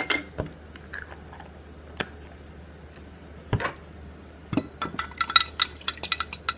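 A few separate clinks of a metal spoon on glass, then from about four and a half seconds in rapid clinking with a ringing note, about five strokes a second, as a spoon stirs salad dressing in a glass measuring cup.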